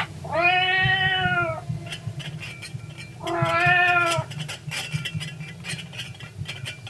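A cat meowing twice, two long drawn-out meows a couple of seconds apart: a recorded sound effect played by the kinetic painting's built-in audio. Scattered light clicks and a steady low hum run underneath.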